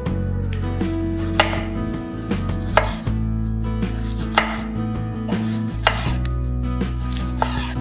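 A chef's knife slicing through a tomato and tapping down on a bamboo cutting board, with a sharp knock about once a second as each slice is cut.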